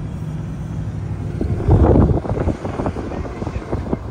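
A vehicle running with a steady low hum, heard from inside its cab; about a second and a half in this gives way to gusty wind buffeting the microphone outdoors, loudest around two seconds in.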